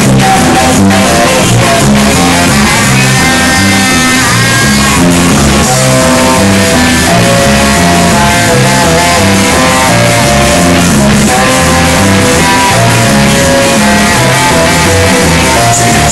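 Live band playing a ska number loud, recorded on a phone: electric guitar over bass and drums with a steady beat, and held melody notes above.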